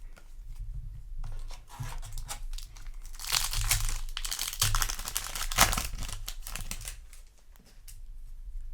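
Foil wrapper of a Yu-Gi-Oh! Duelist's Advance booster pack being torn open and crinkled by hand, loudest in the middle.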